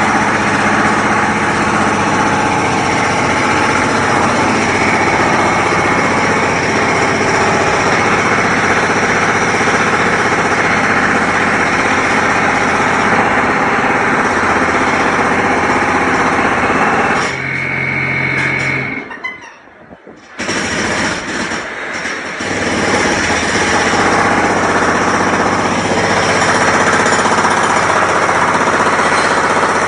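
Construction noise: a machine hammering rapidly and continuously, loud and steady, cutting out for a few seconds about two-thirds of the way through, then starting up again.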